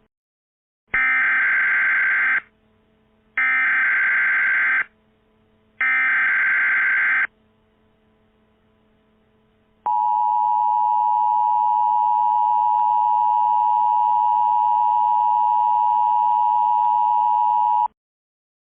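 Emergency Alert System tones: three short bursts of SAME data-header warble, then the steady two-tone attention signal held for about eight seconds before it cuts off near the end. A faint low hum sits underneath.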